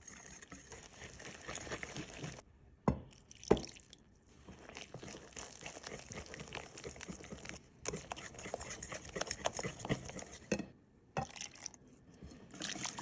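Whisk beating Yorkshire pudding batter of flour, egg and milk in a bowl: wet sloshing with rapid clicks of the whisk against the bowl, stopping briefly a few times, with two louder knocks about three seconds in.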